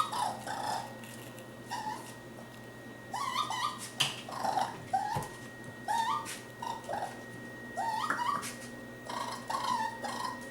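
Young raccoon calling over and over: short, high whimpering cries, several rising quickly in pitch, coming in clusters, with a few sharp clicks between them.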